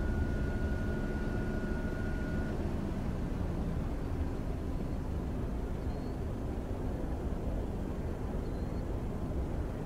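Distant jet aircraft taxiing across the airfield: a steady low rumble of engines, with a faint thin whine that stops about two and a half seconds in.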